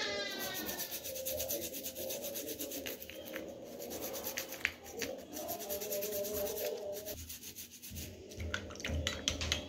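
Toothbrush bristles scrubbing a wet rudraksha bead in quick repeated strokes, brushing the leftover fruit flesh out of its grooves, with a brief pause about seven seconds in.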